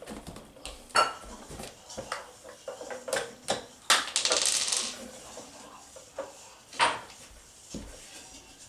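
Irregular clicks and knocks of hard plastic as a wheel is worked onto the axle of a children's ride-on Hummer H2, with a scraping rustle about four seconds in.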